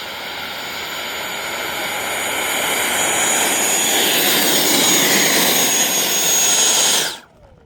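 Electric ducted fan of a Freewing F-16 90 mm RC jet, a steady high whine over a rushing jet-like noise, growing gradually louder. It cuts off abruptly about seven seconds in.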